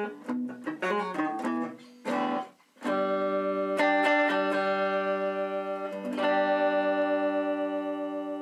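Home-built small semi-hollow electric guitar of the Gibson CS-356 type being played: a run of quick picked notes, then chords struck about three, four and six seconds in and left to ring out.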